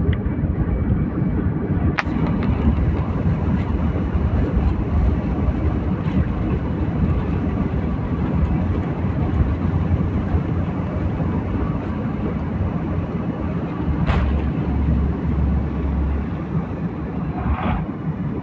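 Airplane taking off: a steady, loud rumble of engine and rushing air, strongest in the low end, broken by a few brief clicks.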